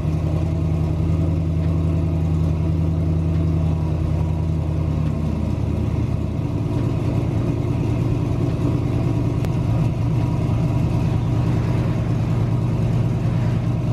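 Supercharged GMC Sierra pickup engine idling steadily just after start-up, with a deep exhaust rumble. About five seconds in, the idle settles a little lower.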